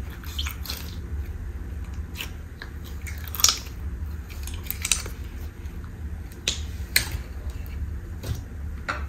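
Thick, gummy slime being pulled out of a plastic tub and squeezed by hand, giving scattered sticky pops and clicks; the loudest pop comes about three and a half seconds in.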